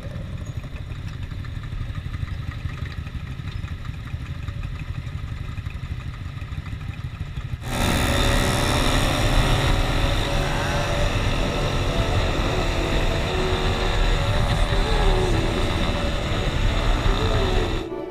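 Yamaha Y15ZR motorcycle riding, engine running in a low steady rumble. About halfway through it turns suddenly much louder: the engine pulls at speed under heavy wind rush, its pitch rising and falling.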